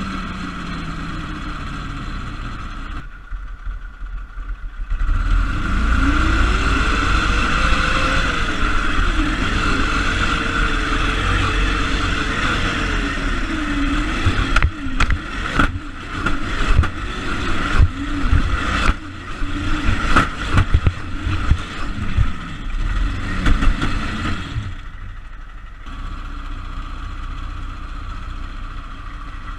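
Baja buggy's single-cylinder Briggs & Stratton engine heard from on board: it slows, then revs up, holds and falls back. From about 14 to 24 s the chassis knocks and rattles over rough ground, and near the end the engine settles to a steady idle.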